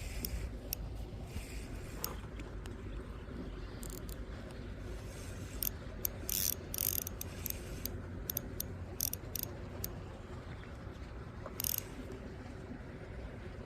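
Fishing reel clicking in short, irregular bursts, over steady low background noise.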